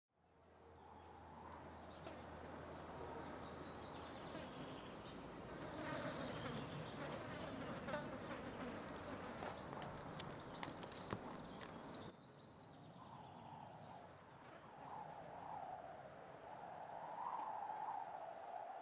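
Faint outdoor ambience of buzzing and chirping insects, fading in from silence. About twelve seconds in the high buzzing drops away and a lower wavering tone takes over.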